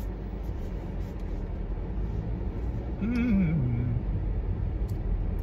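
Steady low rumble inside a car with the engine running. A short wordless vocal sound, like a hum, rises and falls about three seconds in.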